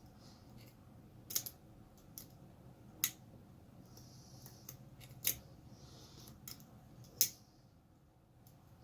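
A metal lock pick working the pins of a five-pin tumbler lock, giving about half a dozen sharp, irregularly spaced clicks as pins are lifted and set during single-pin picking.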